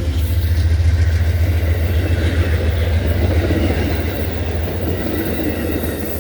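Amtrak passenger train rolling past on the rails: a steady low rumble of wheels on track that gradually fades toward the end as the train moves away.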